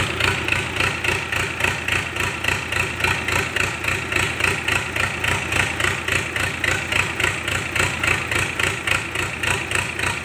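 Isuzu 6BD1 diesel engine running steadily on the workshop floor with its marine transmission attached, holding a constant idle with an even pulsing beat.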